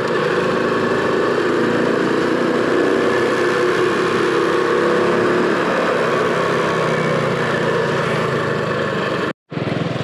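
Small Honda motorcycle engine running steadily on the move, with wind rushing over the microphone; the engine note falls a little about halfway through. The sound cuts out abruptly for a moment near the end.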